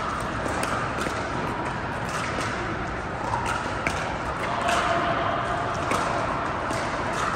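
Pickleball paddles striking the hard plastic ball, with ball bounces, as sharp clicks at irregular intervals that ring on in a large indoor hall, over a steady background hum.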